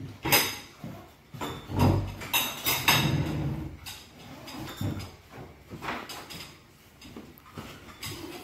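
Knocks and clatter from inside a café: a dull thump about two seconds in and a run of sharper knocks around three seconds, then fainter scattered clicks.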